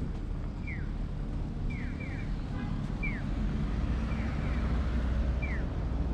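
Audible pedestrian crossing signal giving bird-like electronic chirps, each a short fall in pitch, alternating a single 'piyo' with a double 'piyo-piyo' about every second. Under it runs a steady low rumble of traffic.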